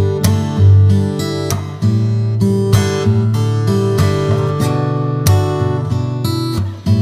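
Relaxing acoustic guitar background music, plucked and strummed notes with a steady beat.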